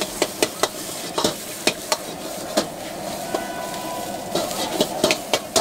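Egg fried rice and greens sizzling in a steel wok while a steel ladle stirs and scrapes it, clanking sharply against the wok in quick, irregular clusters. The clanks are sparser in the middle and come thick again near the end.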